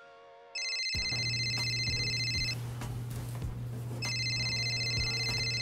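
A phone rings twice with an electronic ringtone, each ring about two seconds long, the first starting about half a second in and the second about four seconds in. A short bit of music ends just before the first ring, and a steady low hum runs under the rings.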